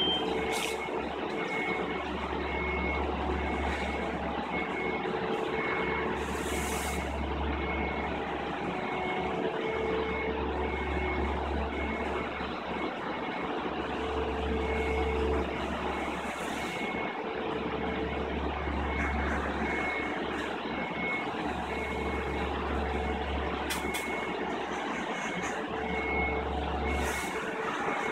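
Warning beeper of a motorized mobile pallet racking system beeping steadily, about one and a half beeps a second, over steady machinery noise and a low hum that cuts in and out every few seconds. The beeping is the alert given while the rack bases travel on their rails.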